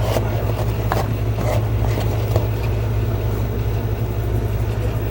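A steady low hum runs throughout, with scattered light clicks and taps as of a plastic Blu-ray case being handled and opened.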